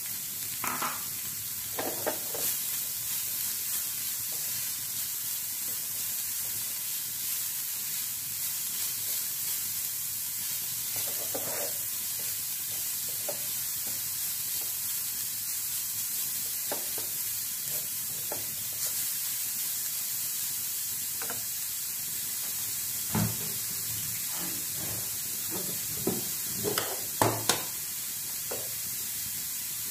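Grated cauliflower sizzling in a hot oiled pan while a wooden spoon stirs and scrapes it, with a few sharper knocks of the spoon against the pan near the end.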